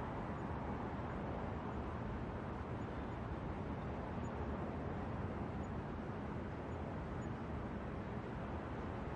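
New York City night ambience: a steady, even hum of distant traffic and city noise, heavy in the low end, with no distinct events standing out.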